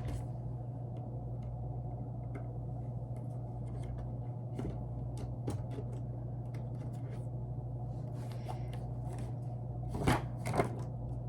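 Light handling of small objects: scattered faint clicks and taps, with two louder clicks about ten seconds in, over a steady low hum.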